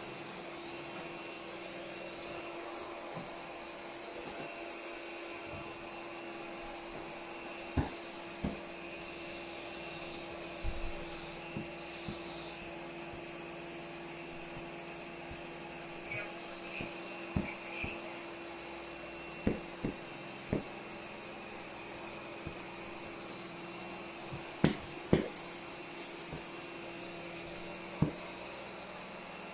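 Vacuum cleaner motor running steadily at a constant pitch, with scattered short knocks and clicks as it is worked over the floor.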